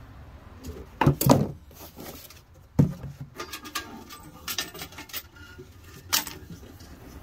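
Clatter and knocks from a painted metal paper towel dispenser being handled and turned over: a cluster of loud knocks about a second in, a single sharp knock near three seconds, then lighter taps and clicks.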